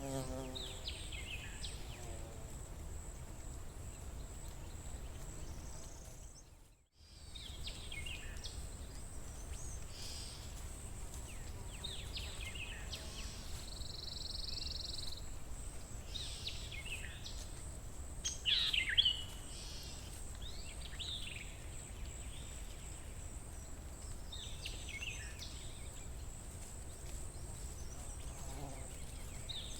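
Forest ambience: several birds chirping and trilling on and off, over a steady low rumble and a constant high-pitched hiss. A fly buzzes briefly at the start, and the sound dips to near silence for a moment about seven seconds in.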